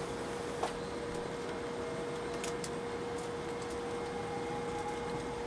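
Cabin noise in the first class of an MD-90 airliner during takeoff: a steady rumble and hiss with a steady hum, a few light clicks and rattles, and a faint whine rising in pitch near the end. The rear-mounted engines are heard only muted from up front.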